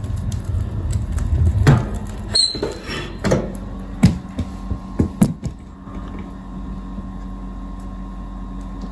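Camera handling noise: a low rumble at first, then about six separate knocks and clicks over a few seconds, then only a steady low hum.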